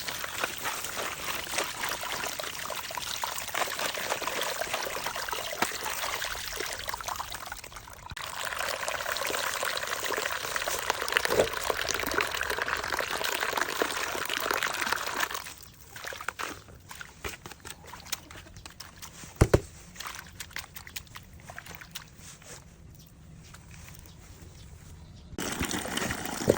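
Water pouring and trickling in a steady stream, heavier for a while about a third of the way in, then stopping. Scattered light clicks and clatter follow, with one sharp knock.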